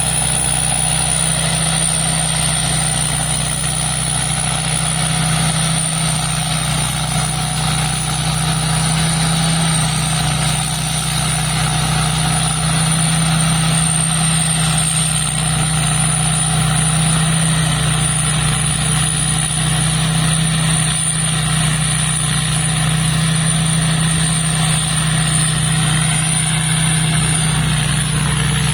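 Combine harvester's diesel engine running steadily, with a thin high whistle wavering slightly in pitch over it.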